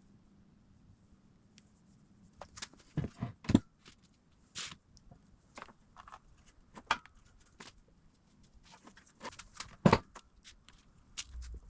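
Scattered clicks and knocks of suspension parts and tools being handled at a workbench, with a cluster of sharper knocks about three seconds in and another near the end.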